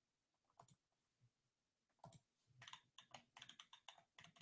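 Near silence with faint, irregular clicking from computer controls as an on-screen document is scrolled, growing more frequent about halfway through.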